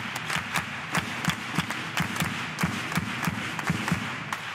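Hall audience applauding, with sharp claps over a steady patter and low thuds in an even beat about three times a second.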